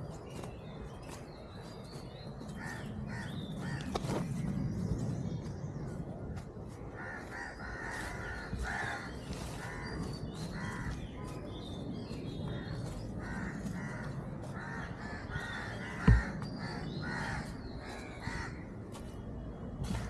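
Birds calling, with a long run of evenly repeated calls through the middle and scattered higher chirps. There is one sharp thump about three quarters of the way through.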